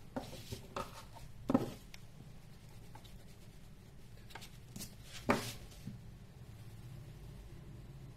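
Pencil drawing on a sheet of paper on a table: a scatter of short scratchy strokes and taps, the two loudest about one and a half and five seconds in, over a steady low hum.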